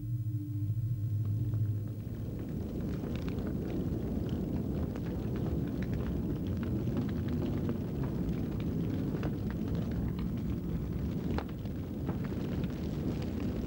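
A low gong-like tone dies away in the first two seconds. Then a large brush fire burns: a steady low rumble with dense crackling throughout.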